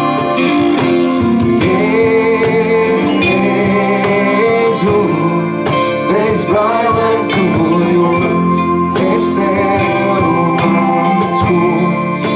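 Live worship band playing a praise song: acoustic and electric guitars, keyboard and a cajón beat, with a sung vocal line over them.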